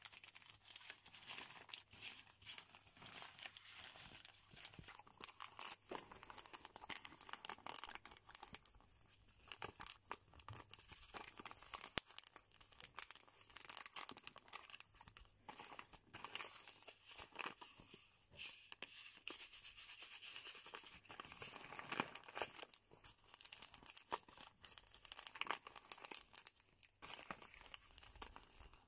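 Glossy laminated sachets of powdered kissel mix crinkling and crackling as fingers rub, squeeze and shuffle them: a dense, quiet rustle full of sharp little crackles.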